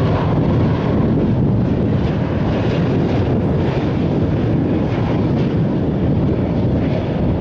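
Arriving Airbus A330-200's jet engines, a loud steady rumbling roar as the airliner passes.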